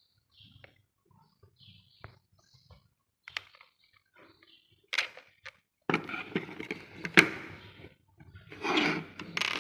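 Light clicks and knocks of small parts being handled as a DC motor is fitted to a robot chassis with screws. From about six seconds in there is denser rustling and scraping with sharper clicks.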